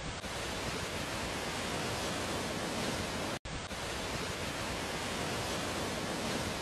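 Sudestada storm waves breaking against and over a riverside seawall, with wind: a steady rushing noise that cuts out for an instant about three and a half seconds in.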